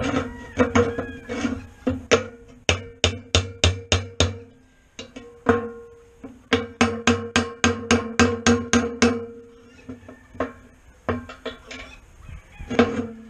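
Hammer blows on a steel punch, driving the old bearing out of the bearing block on a three-point disk harrow: sharp metallic strikes that ring. They come in quick runs of about four a second, with short pauses between runs.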